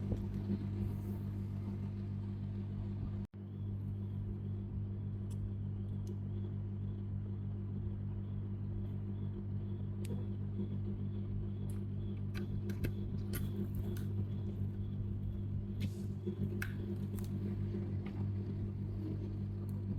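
A steady low hum with a few faint small clicks; the sound cuts out for an instant about three seconds in.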